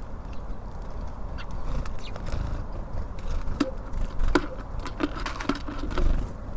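Small birds at a wooden bird feeder, pecking and scrabbling at the seed: a scatter of sharp taps and clicks that come thickest from about halfway in, over a steady low rumble of traffic.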